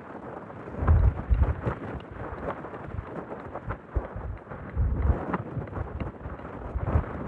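Blizzard wind gusting against the microphone, heard as surging low rumbles about a second in and again around five seconds, with scattered sharp snaps and ticks.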